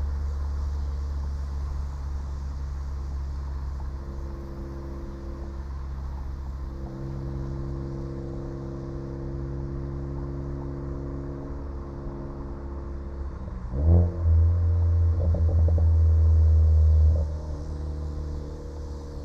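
2014 Ford Focus ST's turbocharged 2.0-litre four-cylinder, running through a catless downpipe and Cobb cat-back exhaust on a crackle tune, holds a steady drone. About 14 seconds in it revs up sharply, stays loud for about three seconds, then drops back.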